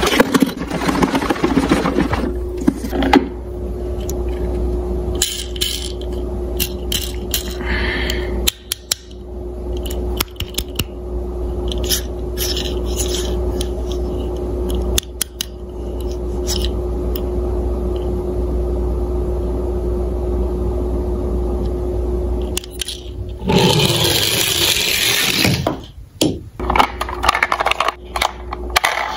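Toy police cars, plastic and diecast, being handled and shifted against each other in a cardboard box: scattered clicks and light scrapes, with louder rattling and rustling near the start and again about 24 seconds in, over a steady low hum.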